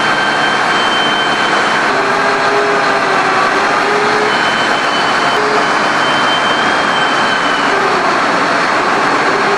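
Steady, loud industrial background noise in a large hangar: an even hiss of machinery and ventilation, with faint high tones that come and go.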